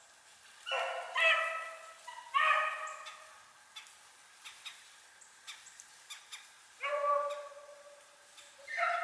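Rabbit hounds baying on a trail: about four long, drawn-out bawls, one after another near the start and another near the end, with faint scattered clicks between them.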